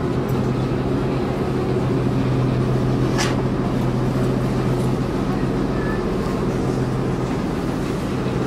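A lake passenger ship's engine running with a steady low drone. A single brief sharp tick about three seconds in.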